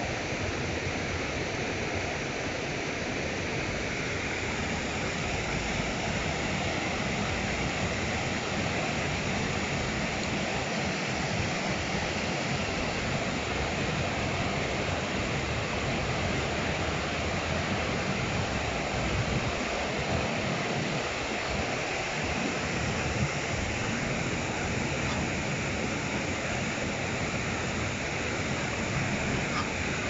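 River water rushing steadily over a low weir.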